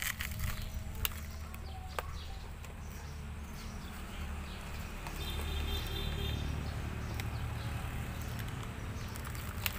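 Plastic toy excavator worked by hand in loose dirt: a few sharp clicks and taps from the plastic arm and bucket as it digs and tips soil into a toy dump truck, over a low steady rumble.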